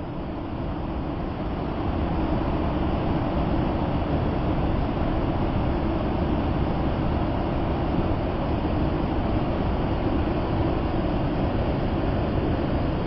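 Large waterfall, Tinap Saitar, with water falling and rushing in a steady, deep noise. It grows louder over the first couple of seconds, then holds even.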